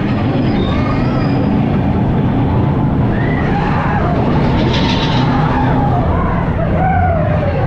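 Big Thunder Mountain Railroad mine-train coaster rumbling and rattling along its track, heard from on board with wind on the microphone. Riders whoop several times over the train's noise.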